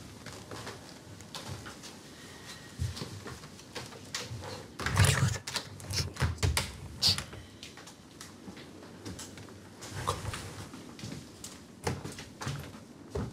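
Knocks and thumps of panelled wooden doors being pulled open and pushed against, with a cluster of louder thumps about five to seven seconds in.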